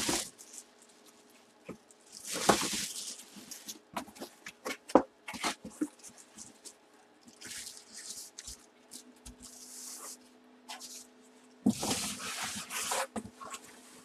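Plastic wrapping and cardboard packaging rustling as they are handled, in three short bursts, with scattered taps and clicks in between.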